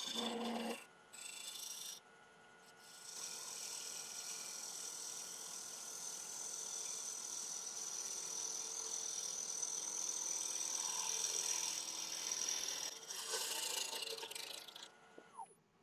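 Bowl gouge cutting a spinning damson bowl blank on a wood lathe: a steady shearing hiss over a high whine, with the tool lifted off twice in the first three seconds, then one long continuous cut that truing the blank round. The sound stops about a second before the end.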